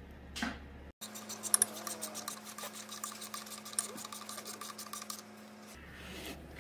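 Hard plastic rubbing, scraping and clicking as the manifold tuning valve is pushed and twisted back into its housing on a Dodge Journey's intake manifold. A couple of sharp clicks come about a second and a half in.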